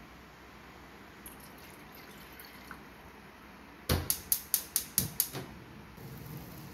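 Gas hob's spark igniter clicking about eight times in quick succession, roughly five clicks a second, as the burner knob is turned; the first click is the loudest. Near the end, water boiling in a stainless saucepan.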